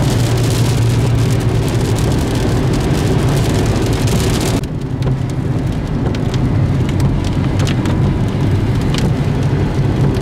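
Car driving in rain, heard from inside the cabin: a steady engine and tyre drone under rain hitting the glass and roof. About halfway through, the road hiss drops and single raindrops tick on the windshield.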